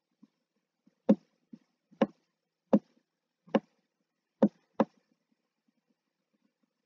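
Sharp taps of a stylus touching down on a writing surface as a word is handwritten stroke by stroke: six of them about a second apart, the last two close together.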